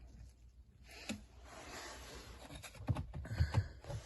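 Dust cover being worked off a steering column by hand: a soft scraping rustle, then a quick run of small clicks and knocks near the end.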